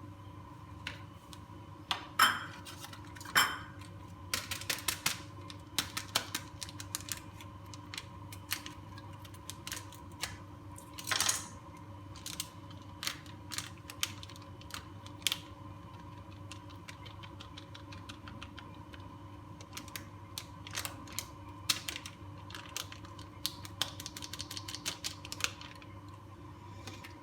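Scattered light clicks and taps with a few louder knocks: cocoa sachets being opened and emptied into a glass of coffee, with a short rustle of powder near the end, over a steady low hum.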